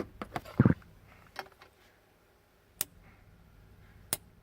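A few sharp clicks and knocks, irregularly spaced: several close together at the start, then single ones every second or so.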